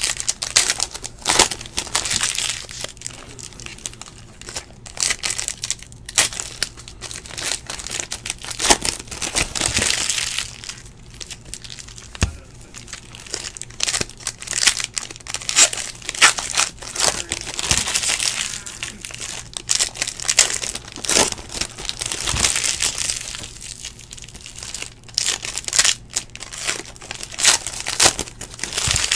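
Foil wrappers of Excalibur basketball card packs being torn open and crinkled by hand: a run of irregular crackling, tearing rustles that come and go.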